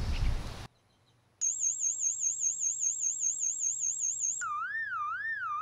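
Electronic alarm siren sounding a warbling tone. A high wavering pitch starts about a second and a half in, wobbling three to four times a second, then switches near the end to a lower, slower warble.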